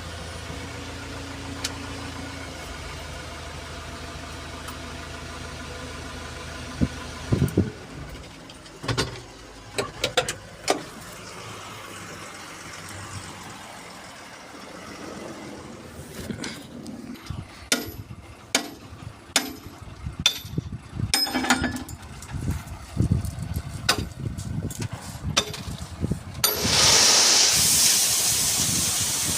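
Diesel engine of a backhoe loader idling steadily, then irregular knocks and clatters of stone, and, from near the end, a loud rushing pour of stone chips.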